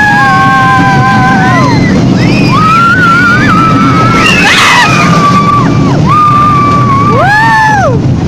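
Riders on a roller coaster screaming in a string of long held cries that rise at the start and fall away at the end, over the steady rumble of the ride.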